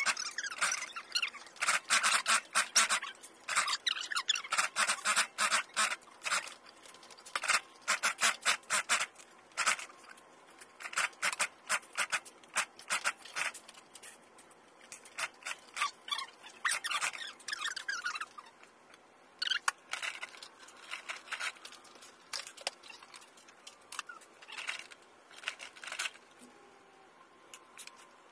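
Industrial post-bed sewing machine stitching hair onto a wig cap in short start-stop runs: a dense clicking of needle strokes that stops and starts again every few seconds.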